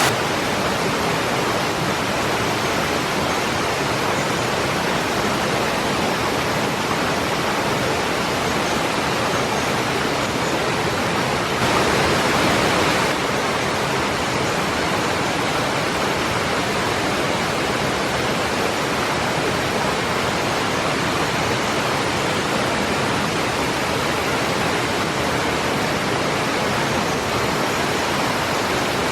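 A waterfall's steady rush of falling, splashing water, briefly a little louder for about a second and a half midway through.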